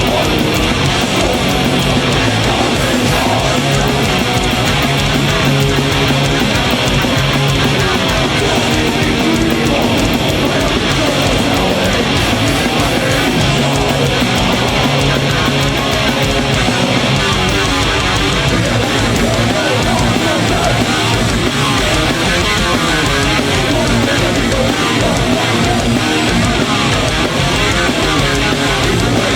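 Heavy metal band playing loud live: distorted electric guitars over heavy drumming with a rapid low beat.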